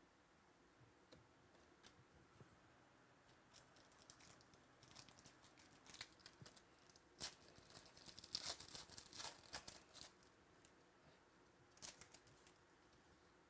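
Faint crinkling and tearing of a trading-card pack wrapper as cards are handled. It comes in short clusters of crisp rustles from about four to ten seconds in, with one more brief rustle near the end.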